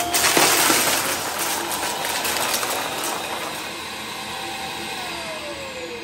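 Hart Pro upright vacuum cleaner running over a pile of small hard debris on carpet, with crunching and rattling in the first second. About five seconds in, the motor's whine starts to fall in pitch as it winds down.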